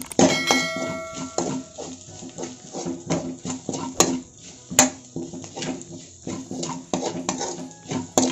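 A steel spoon scraping and knocking against a pan in irregular strokes while stirring frying onions, with a brief metallic ring just after the start. Background music plays underneath.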